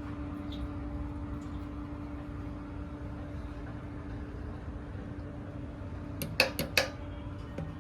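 Steady low mechanical hum with a steady tone in it, then a quick run of three or four sharp knocks a little past six seconds in.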